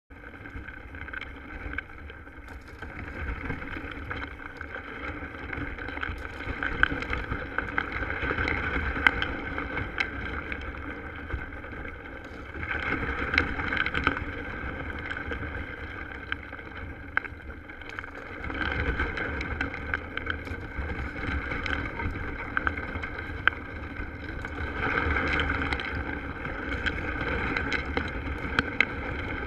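Kayak hull crunching and scraping through a sheet of thin pond ice, with many sharp cracks and ticks of breaking ice. The grinding swells every five or six seconds as the kayak is pushed forward.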